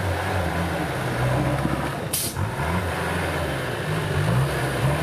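Off-road 4x4's engine running under changing throttle, its note rising and falling, with a short hiss about two seconds in.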